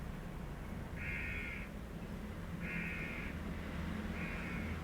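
A bird calling in the background, three calls about a second and a half apart, over a faint steady low hum.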